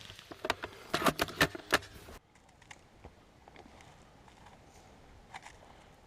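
A quick run of about eight sharp clicks and knocks in the first two seconds, followed by faint scattered ticks.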